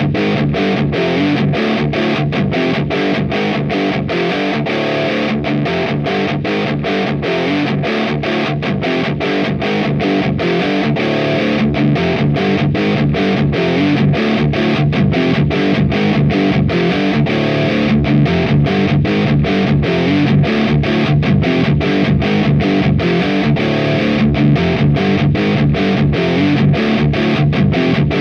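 Distorted electric guitar played through the AMT Bricks R/S Lead 12AX7 tube preamp on a high-gain metal setting, running as a looped riff. The chords are cut off by short, regular gaps, about three a second.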